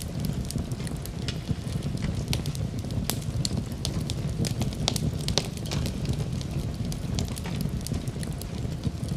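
Wood fire crackling, many irregular sharp pops and snaps over a steady low rumble of the flames.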